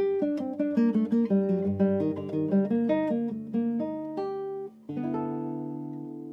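Background music: acoustic guitar picking a quick melody of single notes, then a chord left ringing about five seconds in.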